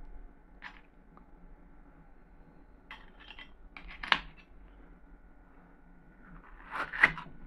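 Small metal heart-shaped cookie cutters clinking on the table as one is picked up, with a few light ticks and then one sharp clink about four seconds in. Near the end comes a brief scrape and click as the cutter is pressed into a watermelon wedge.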